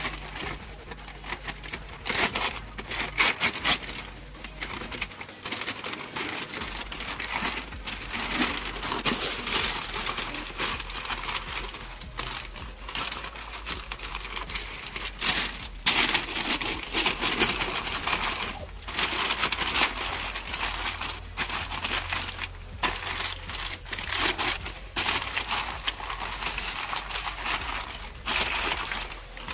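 Pink butcher paper crinkling and rustling in irregular bursts as it is folded and pressed tightly around smoked meat.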